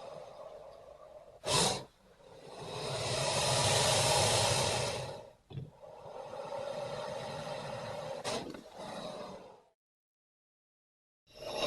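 Creature sound effects for a Purussaurus, a giant prehistoric caiman, built from crocodilian and lion recordings: breathy hissing exhalations. A short sharp burst comes first, then a long hiss that swells and fades, then a softer one with two brief bursts. After a second or so of silence, a loud one starts near the end.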